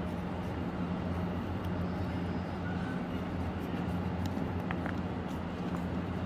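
A steady low machine hum, like a motor running, with a few faint clicks from the scissors and the sheet being handled.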